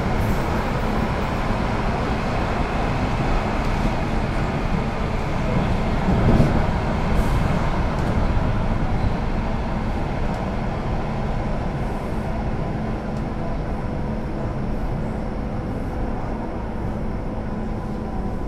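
Duewag/Kiepe B80D Stadtbahn light-rail car running along the track, heard from aboard: a steady rumble of wheels and running gear with a faint steady hum over it. A single louder thump comes about six seconds in.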